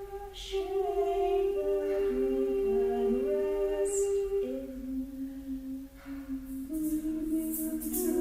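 A small group of voices singing wordless, sustained notes a cappella, the held pitches overlapping and shifting step by step into new chords. Near the end a rhythmic percussion rattle comes in.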